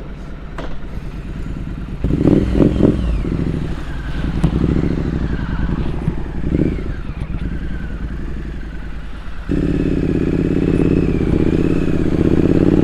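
Triumph Street Scrambler 900's parallel-twin engine idling, with some clattering about two seconds in. About three-quarters of the way through the engine sound abruptly gets louder and fuller, holding steady.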